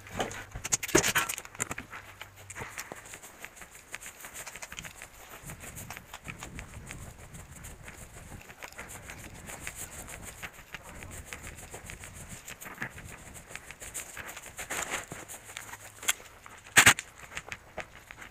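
Footsteps and gear rustling while walking through dry grass, with a louder sharp knock about a second in and the loudest sharp crack near the end.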